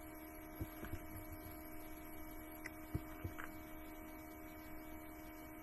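Low, steady electrical hum with a few faint clicks, the loudest about three seconds in.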